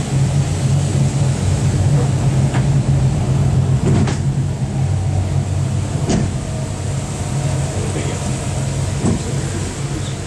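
Sightseeing road train driving, its engine running with a steady low hum, with a few sharp knocks and rattles from the carriages, heard from on board.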